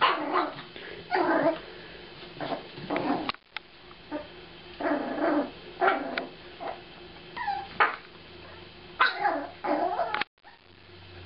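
Seven-week-old Jack Russell Terrier puppy yapping in short high yips and whines, about a dozen separate calls, some sliding in pitch, as she plays at attacking her kibble.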